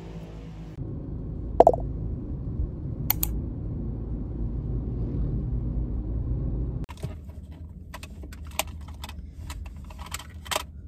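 Car driving in traffic, a steady low road rumble with one short beep about two seconds in; then, inside a parked car, a run of clicks and small rattles of things being handled.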